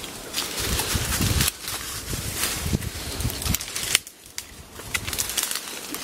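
Footsteps crunching through dry acacia leaf litter and twigs, with branches rustling and scraping as someone pushes through a dense thicket: a steady run of crackles with low thuds of the steps, easing off briefly about two-thirds of the way in.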